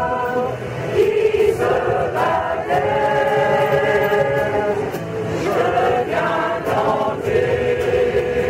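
Mixed choir of men's and women's voices singing a ballad in phrases of long held notes, accompanied by an acoustic guitar.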